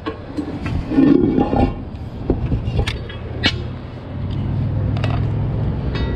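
Cast-iron manhole lid levered and dragged over its opening with a steel lifting bar, scraping and then clanking several times as it settles into the frame. Under it, a steady engine drone that gets a little louder about four seconds in.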